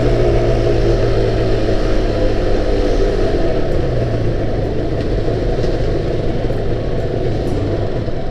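Yamaha R1-Z's two-stroke parallel-twin engine running under way, with wind noise over it and easing off slightly near the end. The expansion chamber has just been rebuilt with fresh silencer packing, and the rider finds the bike running well on this test ride.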